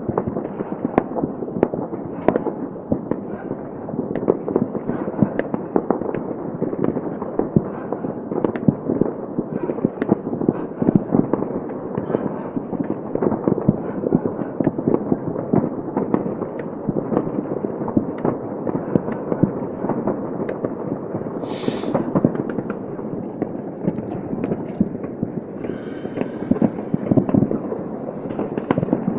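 Many New Year fireworks and firecrackers going off at once, a dense, unbroken crackle of pops and bangs. A short hiss comes about two-thirds of the way in.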